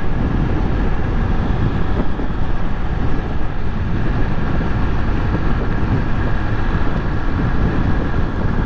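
Honda Titan 125 ES motorcycle's air-cooled single-cylinder four-stroke engine running steadily in fifth gear at highway speed, with wind rushing over the microphone.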